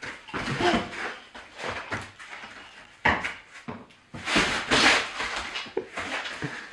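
A dog and a toddler playing with a rubber ball on a foam play mat: scattered knocks and rustling, with a sudden knock about three seconds in and a louder stretch of rustling noise shortly after.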